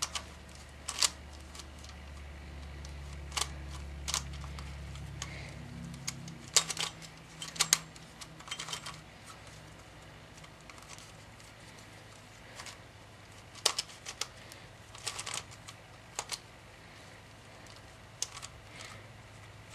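Plastic pieces of a gigaminx clicking and clacking as its layers are turned, in scattered irregular clicks. The puzzle is stiff and catches on single-layer turns, not yet tension-adjusted or lubricated.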